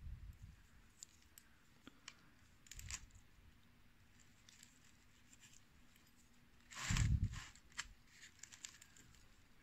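A bare steel knife blade slicing and shaving the cut top of a San Pedro cactus stem: scattered small crisp cuts and scrapes, with one louder knock and scrape about seven seconds in.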